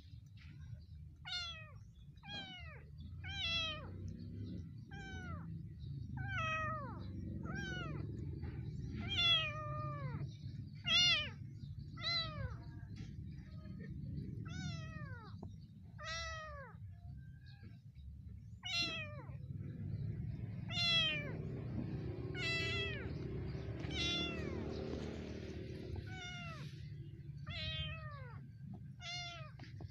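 Young kitten mewing over and over, short high calls that fall in pitch, about one a second, as a monkey grabs and holds it down.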